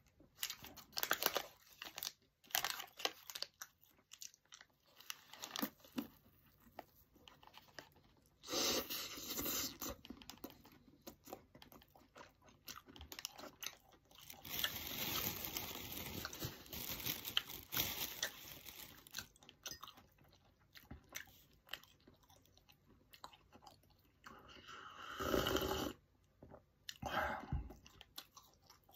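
A person chewing and crunching a toasted egg sandwich close to the microphone, many small crackling crunches with a few longer, louder stretches of noise about a third of the way in, around the middle, and near the end.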